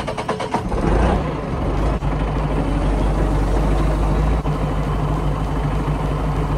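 Heavy diesel engine idling steadily, after a quick run of rattling clicks in the first half second.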